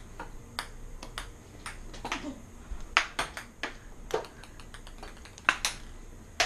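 Ping pong ball being hit and bouncing on a hard floor during a rally: a run of sharp, irregular clicks, loudest in quick pairs around three seconds in and about five and a half seconds in.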